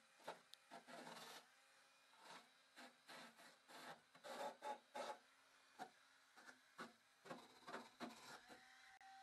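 Faint cordless drill driving a wire wheel against a rusty car sill, scrubbing in short irregular strokes while the motor's steady whine comes and goes. It is the sound of rust being brushed off the sill bottom.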